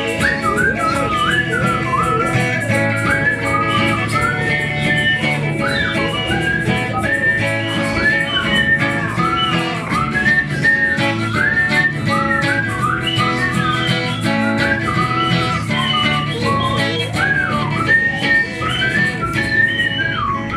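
Band playing an instrumental passage: strummed guitar and bass under a stream of quick whistled chirps and swoops imitating birdsong.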